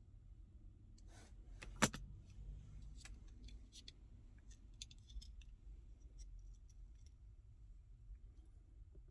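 Light clicks and taps of the plastic key fob case and its metal key being handled as the fob is split open, with one sharper click about two seconds in.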